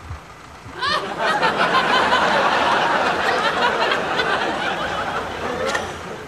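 Studio audience laughter, breaking out suddenly about a second in and dying away near the end.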